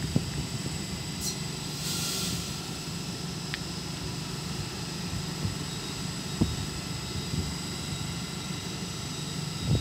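Hull Trains Class 802 bi-mode train standing at the platform, its onboard equipment giving off a steady hum with thin high whines over it. About two seconds in there is a short burst of air hiss.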